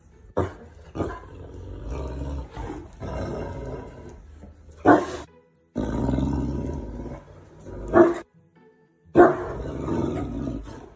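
Animal growls and roars over music, coming in several loud outbursts that start sharply and break off suddenly.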